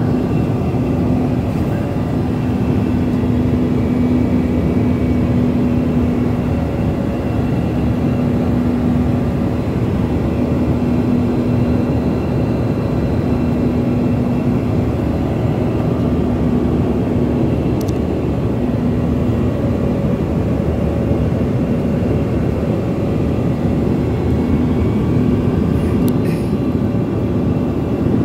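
Steady drone of a small airliner's engines and rushing air heard inside the passenger cabin in flight, with a constant low hum running under it. A couple of faint clicks come through, one about halfway and one near the end.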